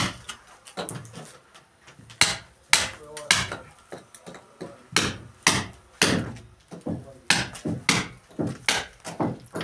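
Hammer striking a steel chisel into a concrete block wall, chasing a channel for conduit. The blows are sharp and repeated at an uneven pace of roughly two a second.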